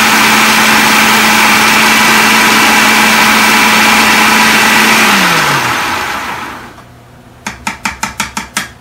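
Food processor motor running steadily at full speed, grinding biscuits into crumbs, then switched off about five seconds in and spinning down with a falling pitch. A quick run of light taps follows near the end.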